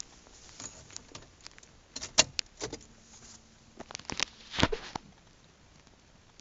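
A string of irregular clicks and knocks of handling, with a faint brief tone partway through, loudest a little over two seconds in and again about four and a half seconds in; no engine is running.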